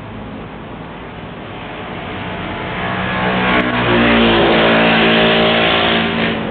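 A motor or engine speeding up, its pitch rising over about a second, then running steady and loud before it cuts off suddenly near the end.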